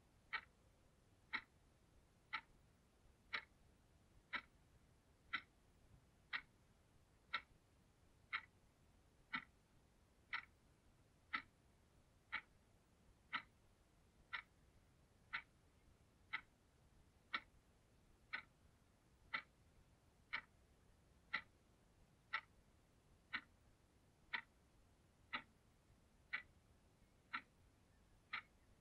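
Analog alarm clock ticking steadily, one sharp tick a second.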